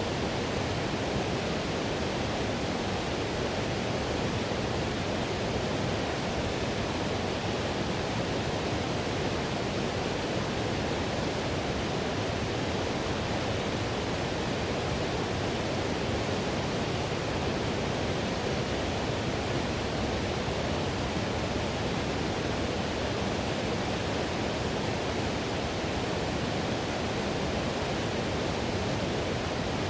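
Whitewater river rushing in a steady, unbroken roar of water.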